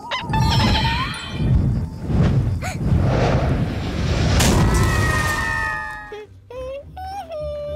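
Deep rumbling, booming cartoon sound effect that lasts about six seconds and fades out. Near the end it gives way to light music and squeaky, gliding cartoon voices.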